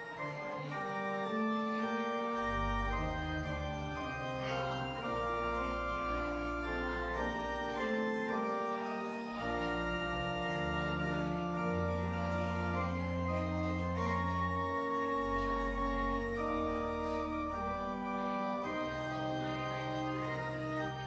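Church organ playing the postlude: slow, sustained chords, with deep pedal bass notes joining about two seconds in.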